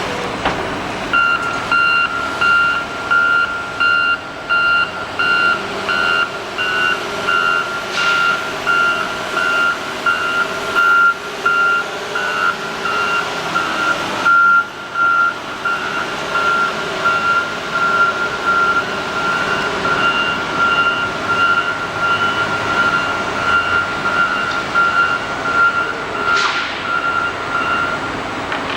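Heavy equipment's backup alarm beeping about twice a second while the machine reverses, over its engine running. The beeping starts about a second in and stops near the end.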